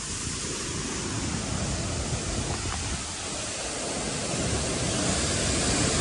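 Steady rushing noise of a powerful waterfall's falling water, growing slightly louder toward the end.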